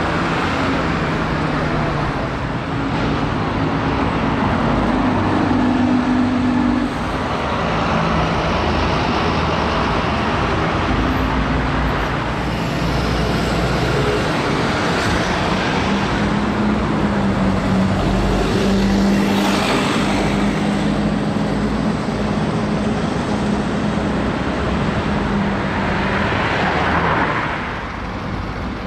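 Street traffic with an Alexander Dennis Dart SLF single-deck diesel bus running as it drives past. An engine tone holds steady through the second half and eases off near the end.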